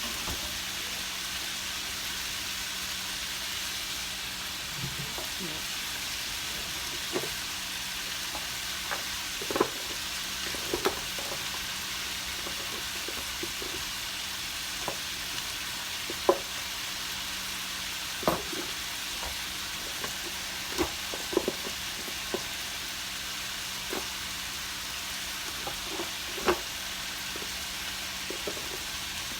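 Chicken pieces browning in a frying pan, sizzling steadily, with scattered sharp clinks and knocks throughout.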